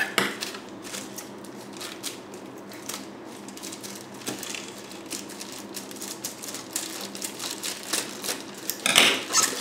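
Hands opening and handling packaging: a string of small irregular clicks, taps and crinkles, louder right at the start and again near the end.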